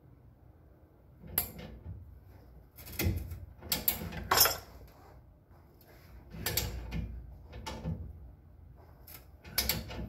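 Socket ratchet being cranked on a leaf-spring spreader under a Model A Ford pickup, with clicking and metal clanks in irregular bursts, loudest about four and a half seconds in.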